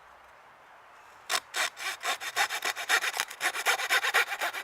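Small hand saw cutting a notch into a wooden fireboard for a hand-drill fire kit: after about a second of quiet, fast back-and-forth strokes, about four to five a second, speeding up towards the end.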